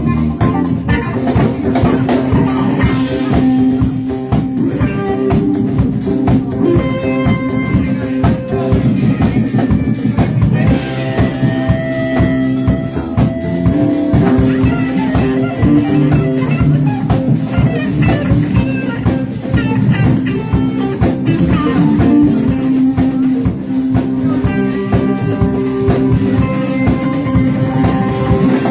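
Live band playing a blues-rock jam: guitar lines over a drum kit keeping a steady beat and a bass holding low notes.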